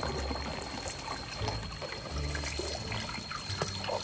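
Water trickling and pouring steadily into the ducklings' pool.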